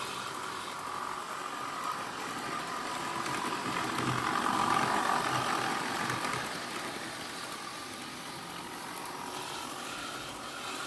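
OO gauge model train running on the layout's track, a steady motor-and-wheel hum that grows louder about four seconds in as it passes close, then fades back.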